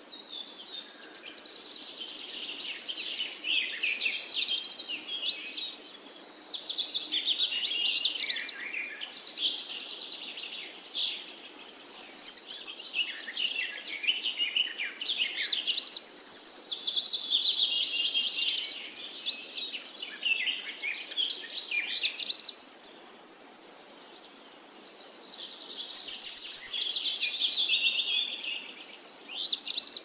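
European robin singing: a series of high, rapid, varied warbling phrases, each a few seconds long, separated by short pauses.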